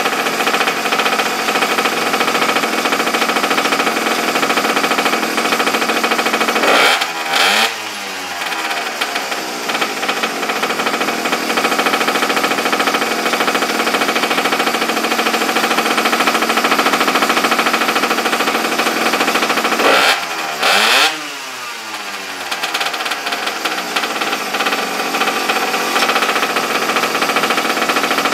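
A pocket bike's small air-cooled engine running steadily, revved twice, about a quarter and three quarters of the way in, each time dropping back down in pitch to a steady run.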